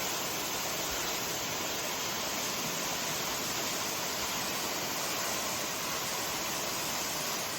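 Lick Creek Falls, water pouring and splashing in a steady, even rush.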